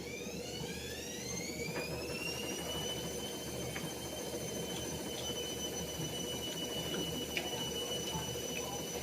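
A high-pitched whine with overtones that rises over the first three seconds and then holds a steady pitch, like a motor spinning up to speed, over a steady low rumble.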